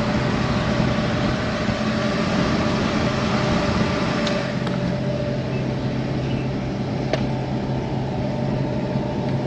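Steady running noise inside a moving pickup truck's cab: a constant engine hum under tyre and road noise.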